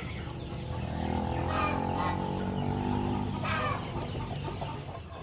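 Farmyard chickens clucking, with one long drawn-out call that starts about a second in and runs for nearly three seconds.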